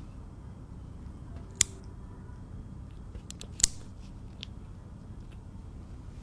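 Pet nail clippers snipping a cat's claws: two sharp clicks about two seconds apart, with a few fainter clicks between and after.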